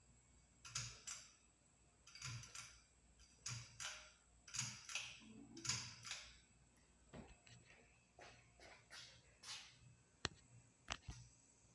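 Litex Charleston Harbor ceiling fan clicking and rattling: a series of short paired rattles over the first several seconds, then two sharp clicks near the end.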